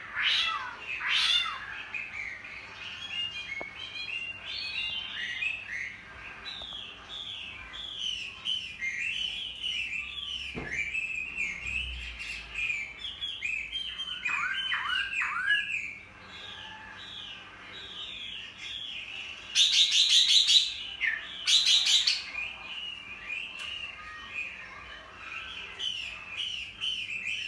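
Chinese hwamei (hoạ mi) singing a long, varied run of quick repeated whistled phrases, with two much louder bursts of song about twenty seconds in.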